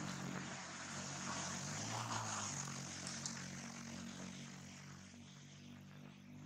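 A steady low engine drone that slowly fades, with a high hiss above it.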